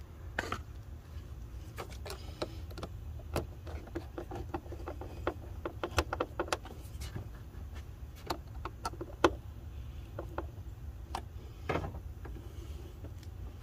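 Hands working a plastic air intake hose and its fittings into place: many irregular light clicks and knocks, thickest in the middle, over a low steady hum.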